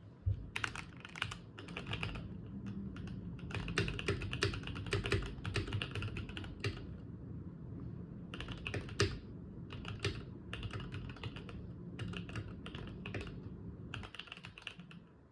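Typing on a Keychron K8 mechanical keyboard: runs of quick keystrokes with short pauses, and a longer break about halfway through.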